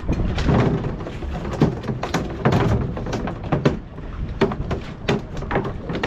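Irregular knocks, taps and clicks aboard a small fishing boat, two or three a second, over a steady rumble of wind and water.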